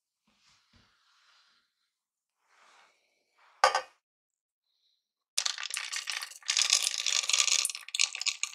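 A single sharp knock a little before the middle, then, from about two-thirds of the way in, chocolate chips poured from a container rattling into a stainless steel saucepan.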